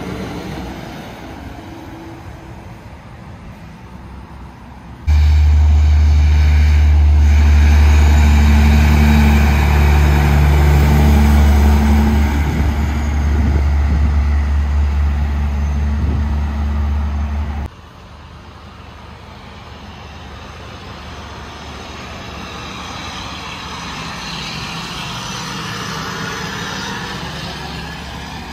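Heavy diesel trucks passing on a two-lane highway. A tri-axle dump truck goes by first. About five seconds in, a semi-tractor pulling an aluminum livestock trailer begins with a loud, low engine rumble that starts and cuts off abruptly. Near the end, another tri-axle dump truck swells in as it approaches and passes.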